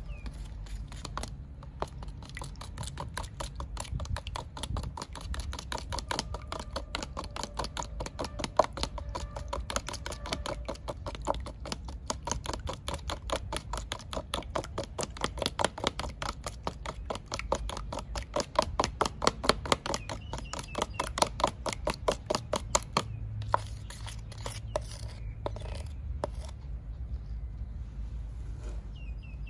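Quick, regular cutting strokes, about five a second, with a few scattered taps after they stop about 23 seconds in, over a low steady rumble.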